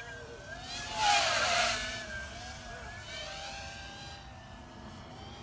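C220R2-SE racing quadcopter's motors and propellers whining in flight, the pitch rising and falling with the throttle. About a second in it makes a close, loud pass with a rush of propeller noise, and its pitch drops as it goes by.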